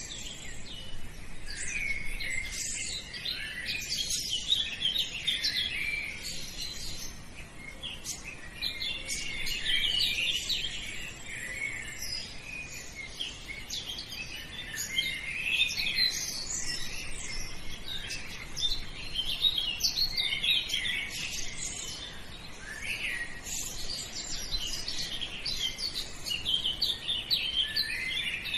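Many small birds chirping and twittering at once in a dense, continuous chorus of high, quick chirps.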